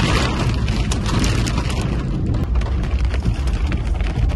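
Strong storm wind buffeting the microphone in a steady low rumble, with scattered ticks of rain striking the vehicle.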